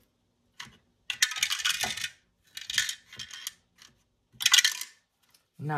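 Paper dollar bills rustling as they are slid into clear plastic binder pockets, then a four-sided die rolled in a box, clattering briefly about four and a half seconds in, followed by a few small ticks.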